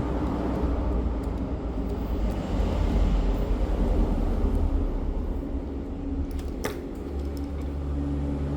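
Steady low background rumble with one sharp click near the end.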